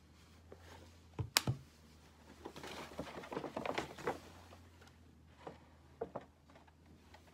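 Plastic bubble tea cups and a paper takeaway bag being handled on a desk: two sharp knocks about a second in as a cup is set down, a stretch of paper rustling in the middle, and a few light taps near the end.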